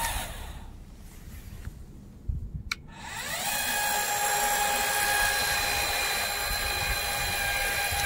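Electric actuator motor of a remote-control crawler mower adjusting the cutting deck height. A high, steady whine runs down and stops just after the start, and there is a click in the pause. About three seconds in the whine starts again, rising quickly to a steady pitch and holding there.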